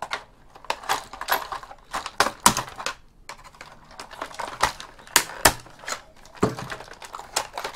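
Irregular plastic clicks, knocks and cracks as a robotic vacuum cleaner's plastic housing is pried and broken apart with a screwdriver, the loudest a pair of sharp cracks about five seconds in.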